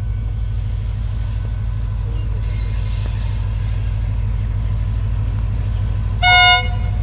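Steady low rumble of a running train, with one short horn toot about six seconds in.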